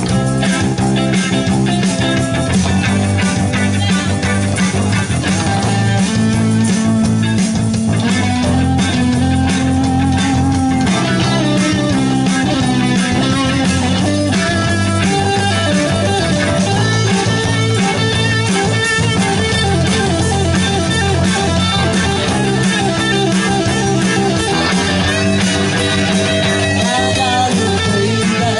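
Live band playing: electric guitars over bass guitar and a drum kit, the drums marking a steady beat.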